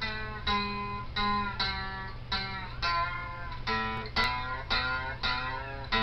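Lap slide guitar played with a slide: a string of picked notes, about two or three a second, each ringing out and fading, with some notes bending in pitch.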